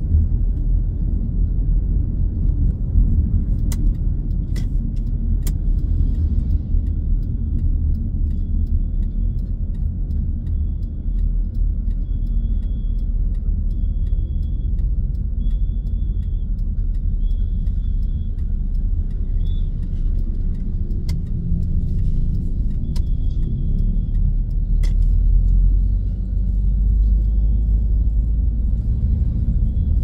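Inside the cabin of a Mitsubishi Grandis on the move: a steady low rumble of engine and road noise. A few light clicks come in a cluster early on and again later.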